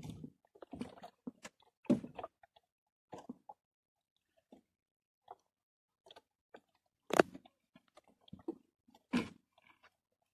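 Irregular taps, clicks and crunches of hands working fishing gear and bait against a small wooden boat's hull, with two sharp knocks about seven and nine seconds in.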